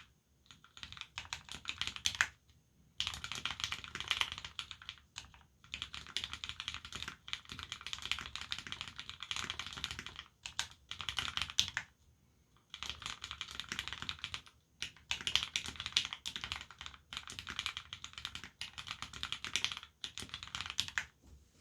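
Typing on an Abko AR87 mechanical keyboard with lubed Cherry Retooled Black linear switches, an aluminium plate and GMK keycaps: rapid keystroke clacks in fast runs broken by short pauses of about half a second to a second.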